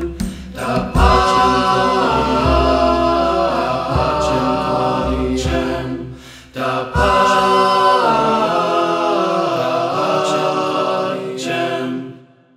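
Several voices singing a slow vocal piece in close harmony over a low bass, with a brief dip about six seconds in; the music fades out and stops just before the end.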